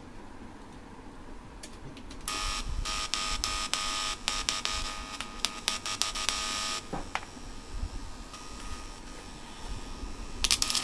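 Buzz from the small speakers of a TDA2030 amplifier board while its input wiring is handled, with crackles through it. The buzz starts about two seconds in and cuts off suddenly a few seconds later; sharp plug clicks follow near the end.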